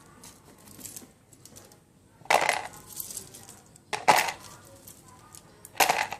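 Small plastic building-block pieces clattering as they are dropped onto a pile, three times: about two seconds in, about four seconds in and near the end. Lighter clicks of pieces being handled come between the drops.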